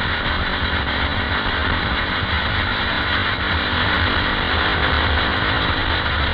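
KTM 520 EXC supermoto's single-cylinder four-stroke engine running steadily under way, with heavy wind rush over the microphone.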